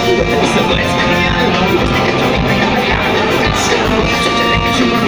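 Live ska-punk band playing loudly: electric guitars, bass and drums on a steady beat, with a trumpet playing held notes over them.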